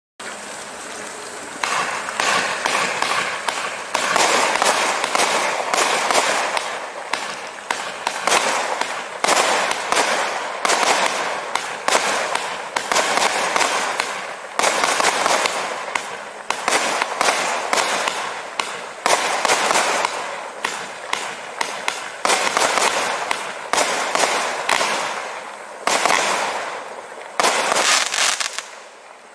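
Winda 'Fun Fuel' 50-shot consumer fireworks cake firing: a rapid, unbroken string of shots and aerial bursts. The shots begin about a second and a half in and stop about a second before the end.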